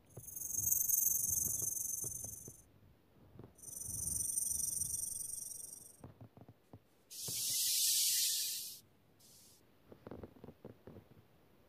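A snake hissing: three long, drawn-out hisses, each swelling and fading over about two seconds, the third harsher than the first two, then one short hiss. Faint rustles and small clicks follow.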